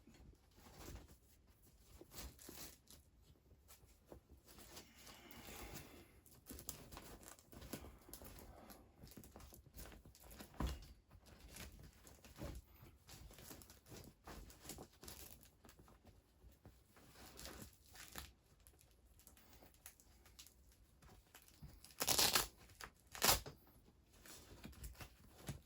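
Rustling and scraping from handling the fabric and frame parts of a Halloween animatronic during assembly, with two short, louder tearing sounds near the end.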